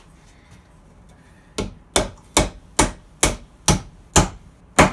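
Claw hammer driving wooden dowels into the holes of a wooden platform. After a short pause, there are eight sharp blows, about two a second.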